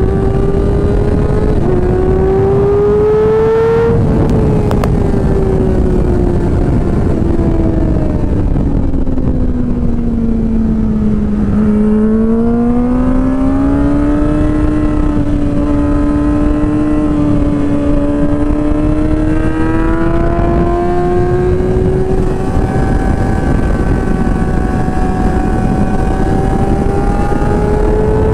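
Yamaha R6 inline-four sport bike engine heard onboard at track speed over a steady rush of wind. The pitch climbs for the first few seconds, then falls steadily as the bike slows, and from about twelve seconds in it climbs again with a couple of brief breaks at gear changes.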